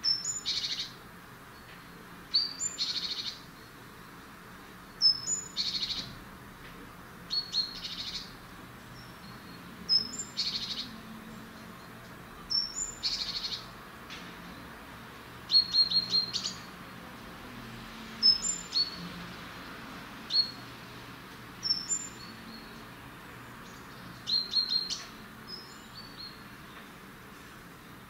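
Eurasian blue tit calling over and over, a call every two to three seconds, each a thin high note followed by a buzzy rattle. Twice, about halfway and near the end, it gives a quick run of short high notes instead.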